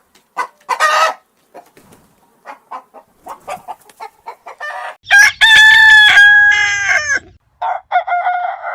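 Chickens clucking in short, scattered calls, then a rooster crowing: a long, loud crow about five seconds in, followed by a second crow near the end.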